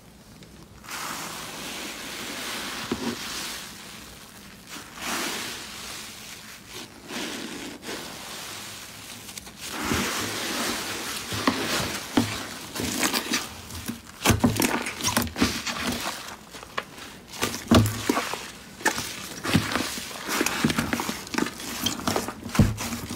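A hand squeezing and pulling apart thick, stringy cotton-style fluffy slime, with sticky crackling and tearing. The crackles get denser and louder from about ten seconds in.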